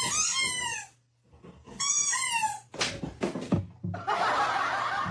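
Cat meowing: two long, high calls that fall in pitch, the second about two seconds in. A few knocks follow, then about a second of hiss-like noise near the end.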